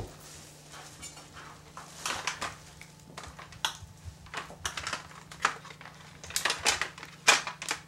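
Kitchen clatter at a cutting board: a knife and utensils knocking and clicking against the board and dishes while lobster pieces are handled, in an irregular run of sharp clicks that grows busier toward the end.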